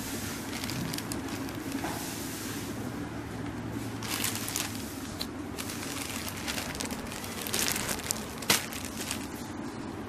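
Plastic packaging, a courier mailer bag and the clear bag of a T-shirt, crinkling and rustling as it is handled and opened, in irregular bursts with one sharp snap about eight and a half seconds in. A steady low hum runs underneath.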